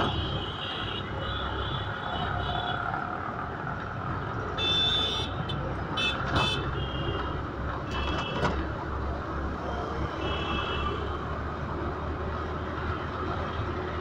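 Busy street traffic heard from a moving vehicle: a steady low engine rumble, with vehicle horns honking again and again, some short toots and some longer blasts, the last about ten seconds in.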